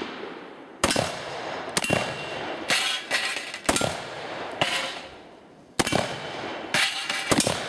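Black-powder revolvers fired by two shooters, a string of single shots about one a second. Each is a sharp bang with a short echo trailing after it.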